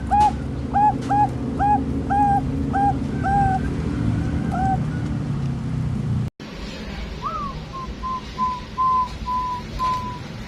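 Zebra dove (perkutut) cooing: a run of short, clipped notes at about three a second that slow and fade out about five seconds in, over a low steady hum. After a sudden cut, a new call starts with a rising note, then short notes that run together into one held note near the end.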